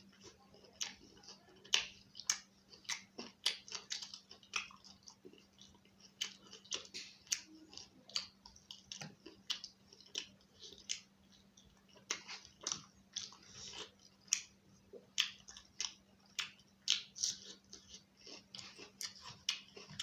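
A person chewing and eating close to the microphone, with many irregular wet mouth clicks and smacks, several a second. The food is roti with chicken and egg curry.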